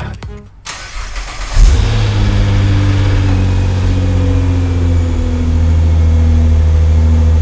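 Nissan GT-R R35's twin-turbo V6 starting up about one and a half seconds in, with a short flare of revs, then settling into a steady idle.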